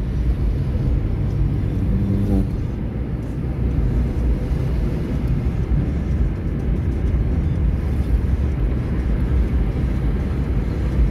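Steady low rumble of engine and tyre noise heard inside the cabin of a moving car.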